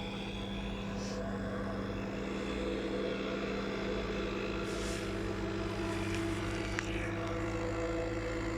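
Small pit bike engine running at a steady speed.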